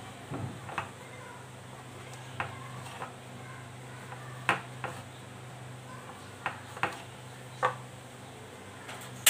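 Kitchen knife slicing through a stack of pastry sheets and knocking on the cutting board: separate sharp knocks, roughly one a second, over a steady low hum.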